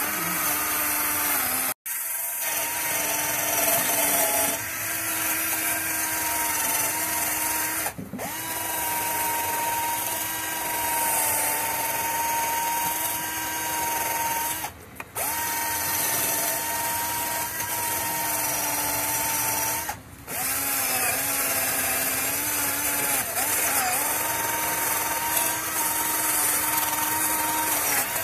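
Cordless drill spinning a wire wheel brush, scrubbing around a copper pipe stub. The motor runs at a steady pitch with a scratching, brushing hiss, and stops for a moment four times.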